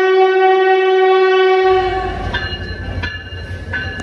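Train horn sounding one long, steady, loud blast that fades out after about two seconds. It is followed by a low rumble with a faint click about every 0.7 seconds.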